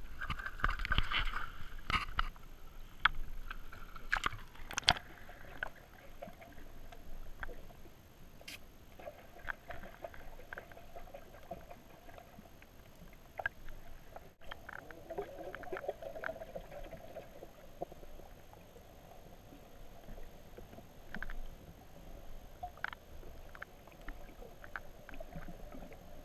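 Action camera in its waterproof housing going into the river on a fishing rod: splashing and sloshing at first, then muffled underwater sound, a faint steady hum with scattered clicks and knocks.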